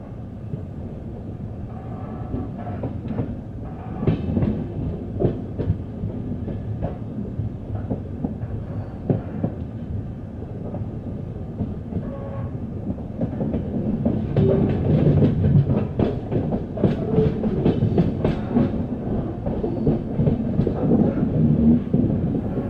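Passenger train wheels clattering over rail joints while it runs, under a steady low rumble; the clickety-clack grows louder and busier about two-thirds of the way through.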